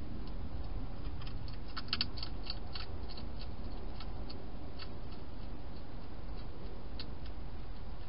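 A hedgehog crunching dry food inside a plastic feeding box: a quick run of sharp crunches around two seconds in, then a few single ones, over a low steady background hiss.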